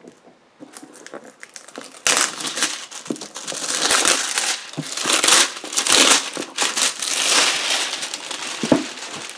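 Plastic shrink-wrap being pulled off a board game box and crumpled: a few small clicks, then dense crinkling starting about two seconds in.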